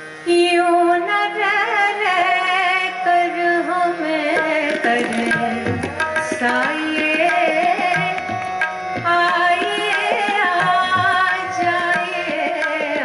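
Traditional-style ghazal performed live: a woman singing over held harmonium notes, with tabla strokes joining about four seconds in and continuing in a steady rhythm.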